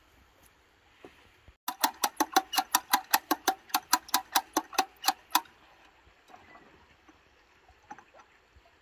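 A fast, even run of sharp metallic clicks, about six a second, starts about two seconds in and lasts some four seconds. It comes from hand work on the metal tines and frame of a two-wheel walking tractor. A few faint ticks follow.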